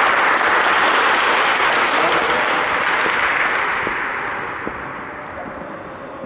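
Crowd applauding with many hands clapping, a dense steady patter that dies away over the last two or three seconds.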